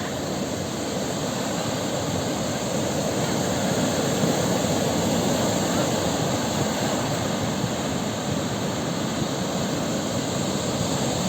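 Sea waves washing onto the shore: a steady rush of surf that swells a little about four seconds in.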